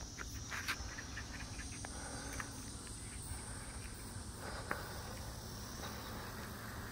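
Insects chirring in a steady, high, continuous buzz over a low rumble, with a few sharp clicks near the start and one more at about four and a half seconds.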